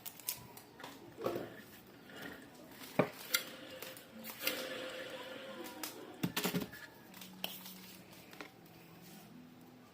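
Small metal parts and hand tools being handled during a ceiling fan repair: irregular clinks and clicks, with a quick cluster of sharp knocks about six seconds in.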